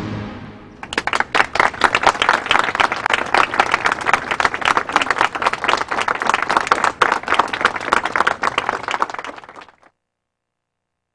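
Applause: many hands clapping in a dense, uneven patter, starting about a second in and cutting off suddenly near the end.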